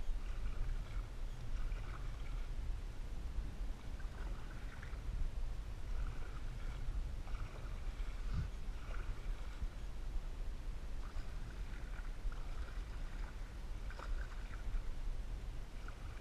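Canoe paddling: paddle strokes splashing and trickling water in short, uneven bursts about every second, over a steady low rumble.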